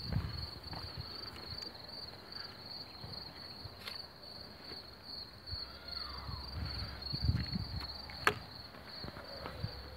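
Insects chirping in a steady, high, rapidly pulsing trill, with soft thuds of footsteps on a wooden footbridge and a sharp click about eight seconds in.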